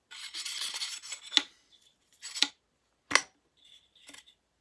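A new bearing being pushed and worked by hand into the end of a Dyson DC07/DC14 vacuum brush bar: scraping for about the first second, then three sharp clicks about a second apart as it starts to go in, with a few faint ticks near the end.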